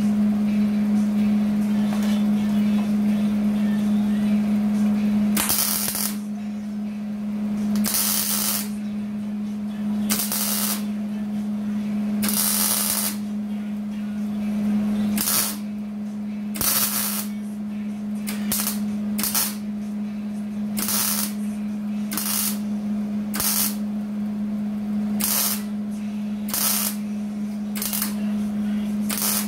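Wire-feed welder laying a series of short tack and stitch welds on a thin sheet-metal rocker-panel patch of a Jeep Wrangler TJ: about twenty brief crackling, hissing bursts, each under a second. They start about five seconds in and come closer together later on, over a steady hum.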